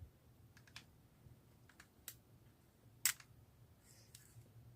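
Scattered light clicks and taps of small metal pistol parts being handled and worked loose during frame disassembly, the sharpest click about three seconds in.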